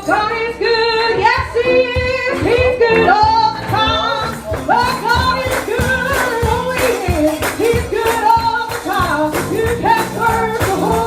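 Gospel music: singing over band accompaniment with a tambourine.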